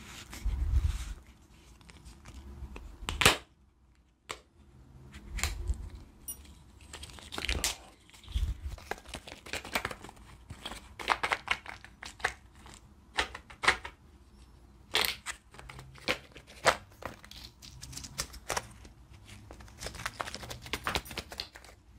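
Hands working a plastic tube of effervescent vitamin tablets close to the microphone: crinkling, tearing and scratching of its wrapping and cap, with irregular sharp clicks and a few low bumps.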